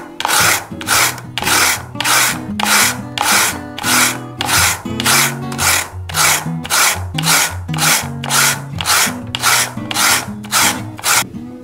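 Peeled raw potato rubbed back and forth on a plastic grater: rasping strokes about twice a second that stop shortly before the end. Soft guitar music plays underneath.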